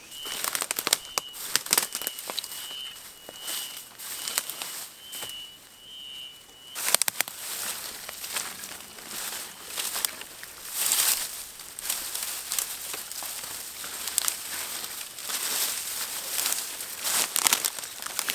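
Packaging crinkling and crackling as it is handled, in dense irregular bursts. An insect keeps up a steady high trill through the first seven seconds, then stops suddenly.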